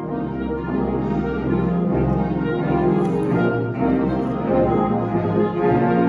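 A full concert wind band playing: brass and woodwinds sustaining chords over deep bass notes that come in at the start.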